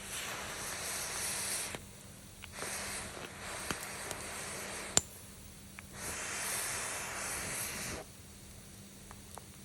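Wood fire hissing in surges of a second or two, with a sharp pop about five seconds in and a few fainter ticks.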